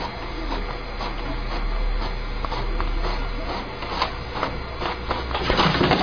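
Desktop inkjet printer running, a steady hum with regular clicks of the print mechanism about twice a second.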